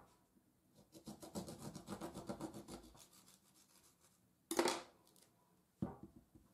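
Kitchen handling noise: about two seconds of quick rubbing and scraping strokes, then a sharp knock a little past halfway and a smaller knock near the end.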